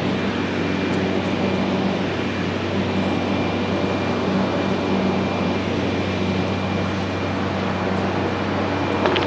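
Steady mechanical hum with an even rushing hiss, unchanging throughout.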